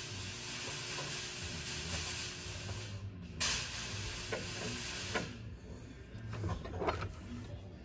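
A steady hiss, with a short break about three seconds in, that cuts off abruptly about five seconds in, followed by a few light clicks and knocks.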